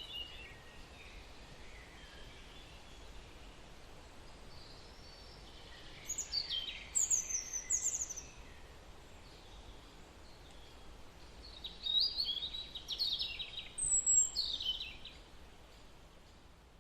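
Birds chirping over a steady faint background noise: bouts of quick high calls that slide down in pitch, one about six seconds in and another about twelve seconds in. The sound fades out near the end.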